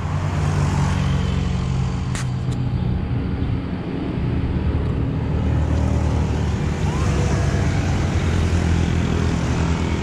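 A motor vehicle's engine running steadily at idle, against road traffic noise, with one sharp click about two seconds in.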